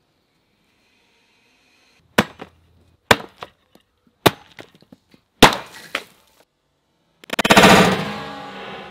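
Four sharp whacks about a second apart as a steel flail with a sprocket-shaped head on a twisted steel cable strikes a butternut squash on a plywood board, each followed by a smaller knock. About seven seconds in, a heavier blow bursts the squash apart in a longer crash that fades away.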